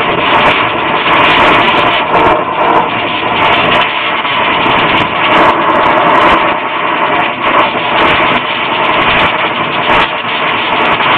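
Brazing torch flame burning steadily against the copper joints of a new heat-pump reversing valve, a continuous rushing hiss with small swells in loudness.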